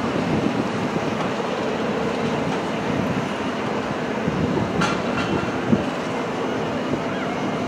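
Boeing 777-200's General Electric GE90 jet engines on the landing roll just after touchdown: a steady, rumbling roar. A sharp click is heard about five seconds in.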